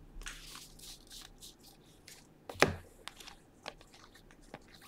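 Quiet, soft sliding swishes and light clicks of Bowman Draft baseball cards being flipped one by one off a stack held in the hand, with one sharper click about two and a half seconds in.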